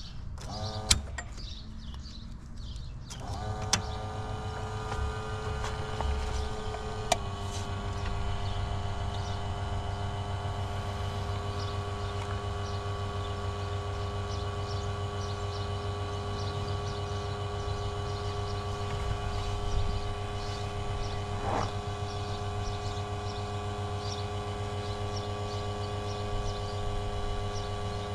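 Smoke machine for vacuum-leak testing running, pumping smoke into the engine's intake: after a couple of clicks its pump starts about three seconds in and hums steadily, with another click and a slight change in the hum about seven seconds in.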